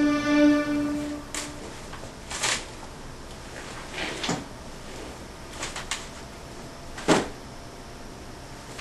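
Closet rummaging: a series of separate rustles and knocks as clothes and objects are pulled off a closet shelf. A held humming tone lasts about the first second and a half.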